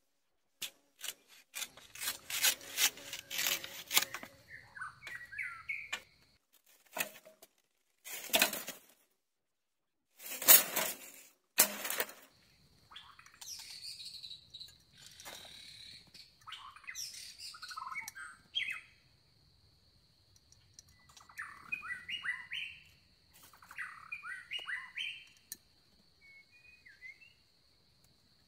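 Small birds chirping in short, quick phrases, over a thin steady high insect trill. A few sharp knocks and rustles, the loudest sounds here, come in the first half.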